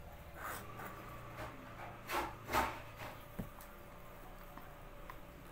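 A drink sipped through a straw from a small plastic cup: two short, faint slurps close together about two seconds in.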